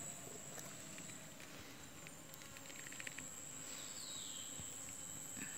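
Faint outdoor ambience: a steady high-pitched insect drone, with a short run of quick ticks about three seconds in and a brief falling chirp about a second later.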